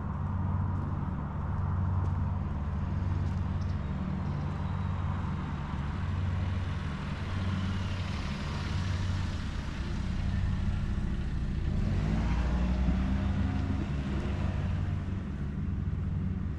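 Road traffic. A steady low engine hum runs throughout, a vehicle passes with its tyre hiss swelling about eight to ten seconds in, and an engine note rises and falls about twelve seconds in.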